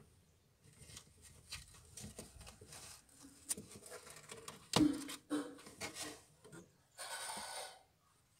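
A pet ferret scrabbling and burrowing in wood-shaving bedding in a wooden box: faint rustling and scratching with many small clicks, one louder knock a little before the middle, and a longer rustle of shavings about seven seconds in.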